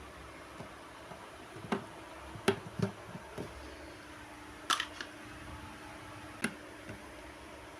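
Plastic toy kitchen pieces being handled: about six scattered clicks and knocks a second or so apart.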